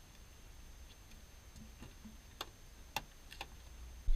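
A few faint separate clicks over quiet background: the door handle and latch of a Ford pickup being worked as the driver's door is opened.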